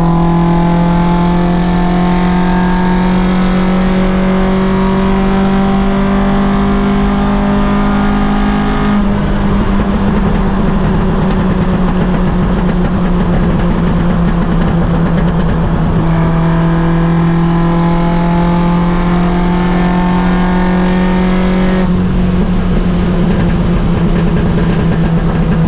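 Toyota 4A-GE inline four-cylinder engine on side-draft carburetors running at a steady held speed, its pitch creeping up slightly over the first several seconds. The tone changes abruptly about nine seconds and again about twenty-two seconds in.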